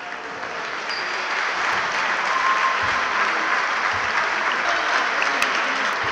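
Crowd of spectators applauding, swelling over the first couple of seconds and then holding steady.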